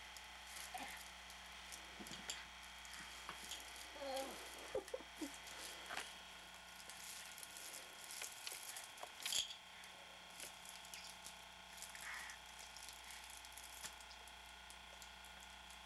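Faint steady hiss and hum of an old home camcorder recording, with scattered small clicks and a sharper click about nine seconds in. A few short soft sounds come about four to five seconds in.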